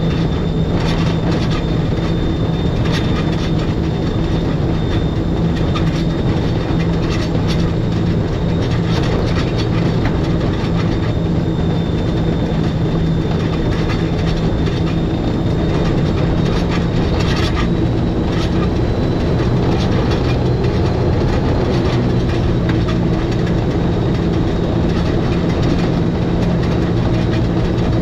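Schynige Platte Railway electric rack train running down its Riggenbach rack line: a steady low hum with a faint high whine over continuous running noise, and scattered clicks and knocks from wheels and rack, a brief cluster of them a little past halfway.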